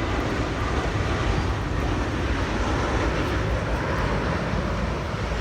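Jet airliner flying low overhead: steady engine noise with a deep low end.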